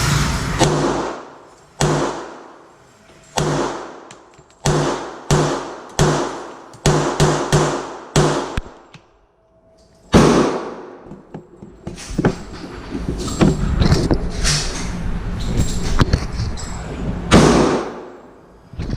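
Gunshots echoing in a shooting range: a few single shots, then a quick string at about two shots a second, a short pause, then more shots overlapping to the end.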